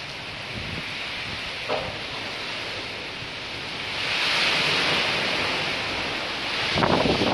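Heavy rain pouring with gusting wind, a steady hiss that swells about four seconds in. Near the end, wind gusts buffet the microphone.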